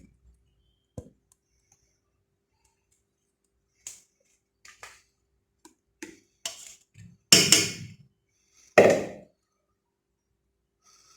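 Cookware being handled: a run of short clicks and clinks, then two loud knocks about seven and nine seconds in.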